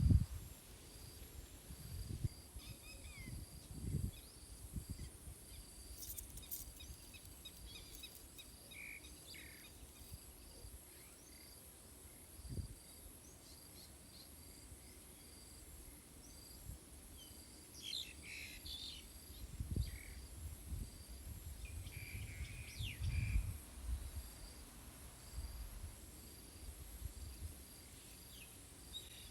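Strong wind gusting against the microphone in low rumbles, with birds chirping in short scattered calls.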